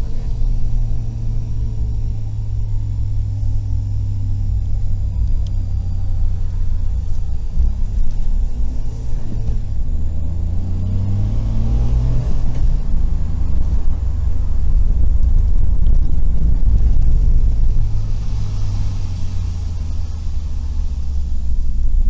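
Suzuki Every kei van heard from inside the cabin: a steady low engine and road drone. About ten seconds in the engine note rises in pitch over a couple of seconds, then settles back to the drone.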